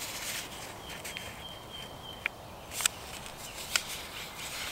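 A sheet of paper being folded and creased by hand on a wooden board: a few short, sharp crinkles and taps, the loudest about three and four seconds in. A thin, steady high note holds for about a second and a half near the start.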